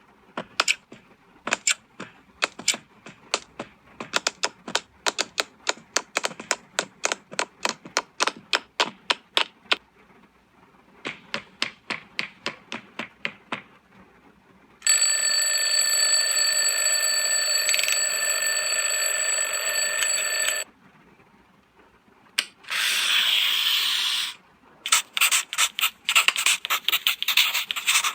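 A sequence of everyday sound effects played from a sound-effects app: a run of sharp clicks about four a second, then a steady electronic ringing of several tones lasting about six seconds, a short noisy hiss, and rapid scratchy clicking near the end.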